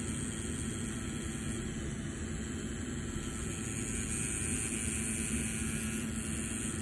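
Tattoo machine running with a steady, even hum as the needle works the lines into the skin.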